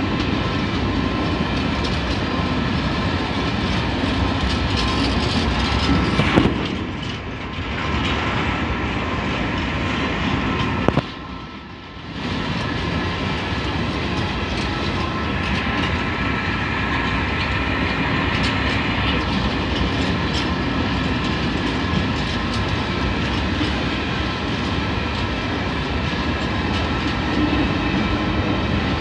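Ore-train hopper wagons rolling past close by: a steady rumble of wheels over the rail joints with a clickety-clack and a faint steady high ring. The noise drops away briefly twice, about seven and eleven seconds in.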